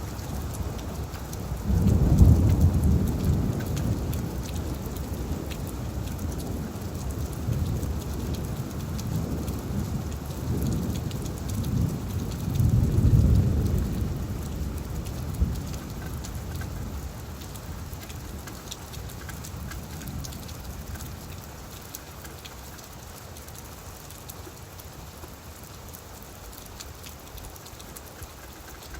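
Steady rain falling on leaves, with a low roll of thunder about two seconds in and another about halfway through, the rumbling dying away in the last part.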